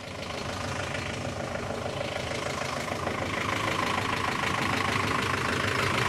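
Ford Transit ice cream van idling, a steady engine hum that grows louder over the few seconds as it is neared.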